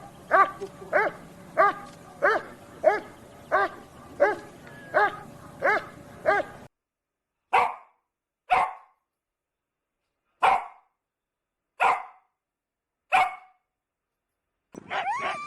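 A dog barking in a steady rhythm, a little under two barks a second, over a low background hum that cuts off about two-thirds of the way in. Then single barks, five of them, a second or more apart with silence between. Near the end comes higher, gliding yelping.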